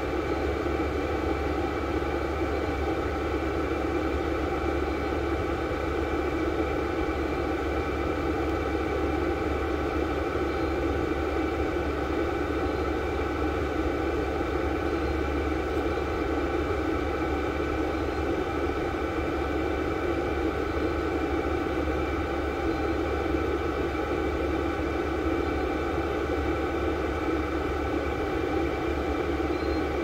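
VEVOR 8 kW 12 V diesel air heater running steadily, its blower giving a constant whir with several held tones that sounds just like air blowing, nice and quiet.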